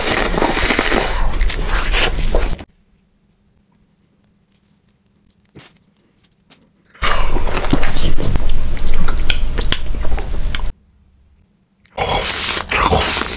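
Loud close-up eating sounds in three stretches with silent gaps between them: noodles slurped at the start, and bites into an ear of corn on the cob near the end.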